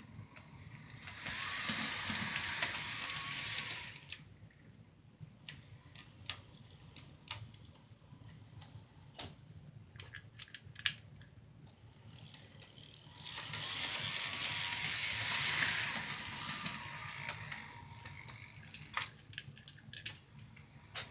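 Model train running on a layout, passing close twice: each pass is a swell of mechanical clatter lasting about three seconds. Scattered clicks come in between.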